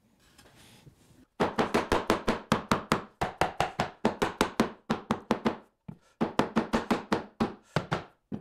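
Rubber mallet hammering a wooden bracket's top board down onto its glued spacer pieces: a fast run of sharp knocks, about five a second, with a short break just before the sixth second, then a second run of blows.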